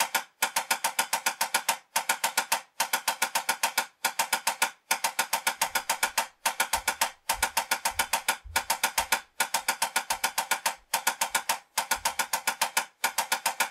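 Wooden drumsticks playing rapid, even sixteenth-note strokes on a drum practice pad, a 16th-note timing exercise. The stream of strokes breaks for a short rest about once a second, where the rhythm pattern leaves notes out.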